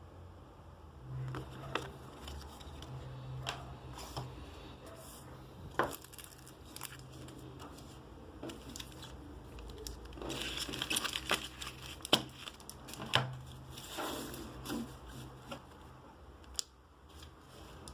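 Handling of packaging and cards: scattered clicks and taps with crinkling and tearing, and a longer rustle about ten seconds in.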